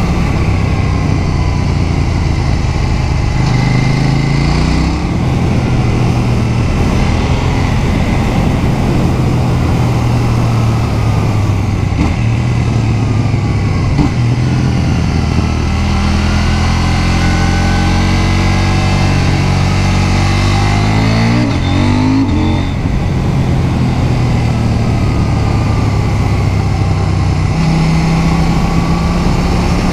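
KTM 790 Duke's 799 cc parallel-twin engine running under way, its pitch rising and falling as the rider rolls on and off the throttle through the bends, with a quick climb in revs about two-thirds of the way through. A rush of wind runs under the engine.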